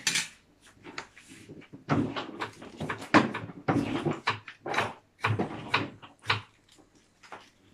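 Irregular knocks, clicks and clatter of kitchen utensils and cookware being handled around a stove.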